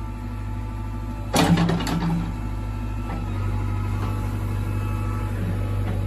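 JCB backhoe loader's diesel engine idling steadily, with two sharp knocks about a second and a half in.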